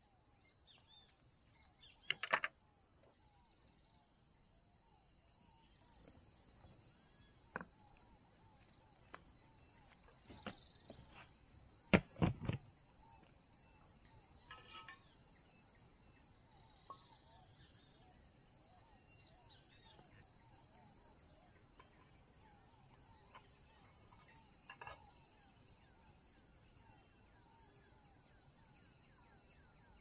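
Steady high-pitched insect chorus, like crickets. A few sharp knocks and clicks are scattered through it, the loudest pair about twelve seconds in.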